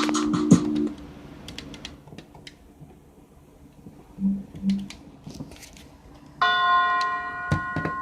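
Electronic tones: a short low chord at the start, two brief low beeps in the middle, then a sustained bell-like tone with ringing overtones from about six and a half seconds in, amid faint clicks.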